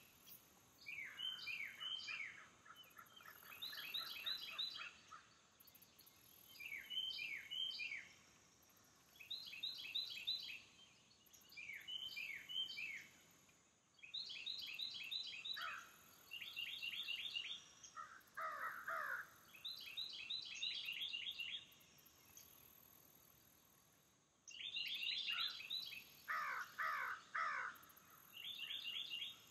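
Birds singing: short phrases of quick, high repeated notes come every second or two. A lower, harsher bird call sounds in two short runs, about two-thirds of the way in and again near the end. Underneath is a faint, steady, high insect drone.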